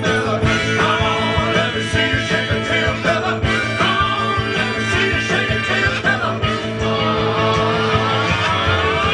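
Upbeat rock-and-roll style music with a steady beat.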